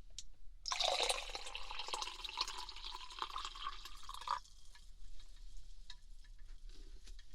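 Water poured into a cup for about four seconds, filling it, then stopping, followed by a few faint light clicks.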